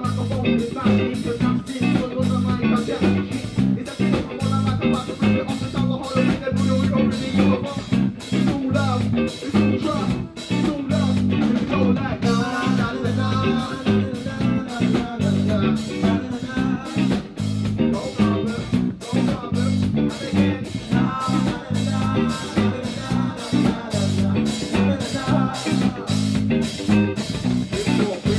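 Live band music with a steady beat and heavy bass, guitar and drum kit prominent.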